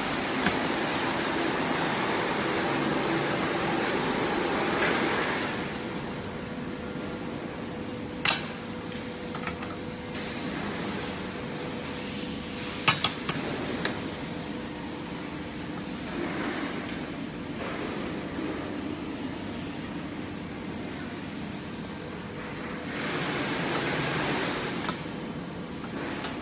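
Steady fan-like machine whir with a thin high whine running through it. A few sharp cracks break in: a loud one about eight seconds in and a quick cluster of three about five seconds later.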